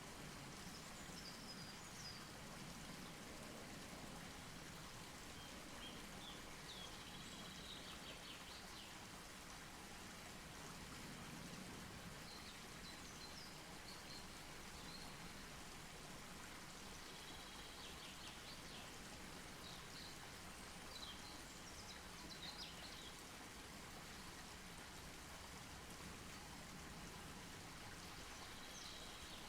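Faint campfire crackling and hissing, with a few faint high chirps scattered through.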